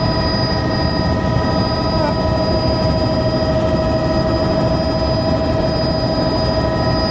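Helicopter in flight heard from inside the cabin: a steady low rumble from rotor and engine, with several steady whining tones over it that hold the same pitch throughout.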